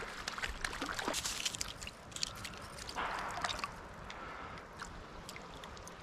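Hooked brown trout splashing at the surface of a shallow creek as it is brought to the net: small splashes and water trickling, with many short scattered clicks.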